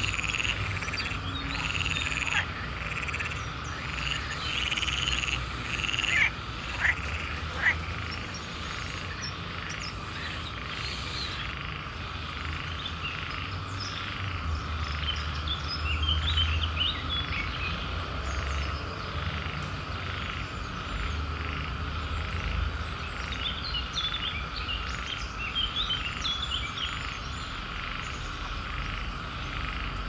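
Frog chorus: many frogs calling over and over on top of a steady high drone of calls, with three sharp clicks standing out between about six and eight seconds in.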